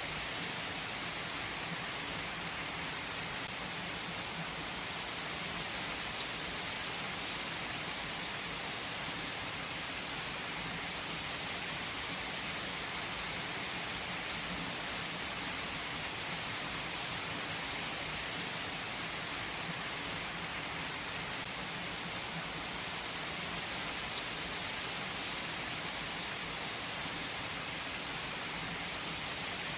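Heavy rain falling steadily on trees, a dense even patter without a break.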